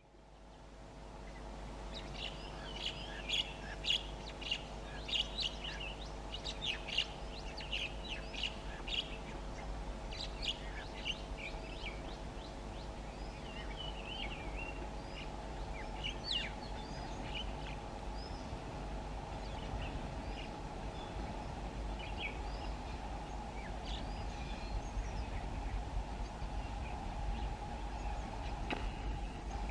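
Birds chirping, many short calls thickest in the first half, over a steady low hum from the approaching WAP-7 electric locomotive that grows a little louder toward the end.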